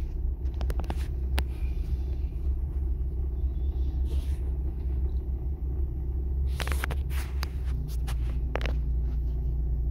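Vehicle engine running, heard from inside the cabin as a steady low rumble. A few short clicks and knocks come about two-thirds of the way in.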